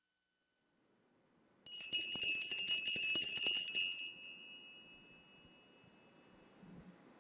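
Altar bells, a cluster of small bells, shaken rapidly for about two seconds from a second and a half in, then left to ring out and fade. Rung as the signal of the blessing with the Blessed Sacrament at benediction.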